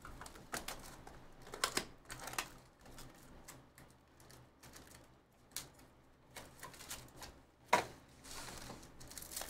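A cardboard trading-card hobby box being handled and its foil-wrapped packs taken out and set down on the table: scattered light taps, clicks and rustles, with one sharper tap about three-quarters of the way through.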